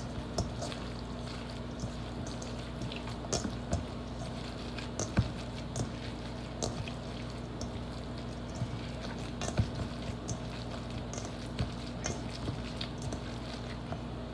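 Light, irregular clicks and taps of kitchen handling over a steady low hum.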